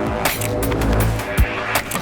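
Background music with a beat: deep sustained bass and held tones, punctuated by sharp percussive hits.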